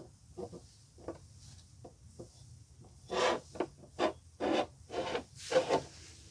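Rubbing strokes as a foam applicator spreads ceramic coating over glossy ABS plastic trim. There are a few light, short strokes at first, then from about halfway a quicker run of louder, longer strokes.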